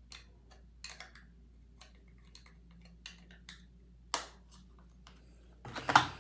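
Light clicks and taps of small objects being handled, scattered and irregular, with a sharper click about four seconds in and a louder clatter near the end.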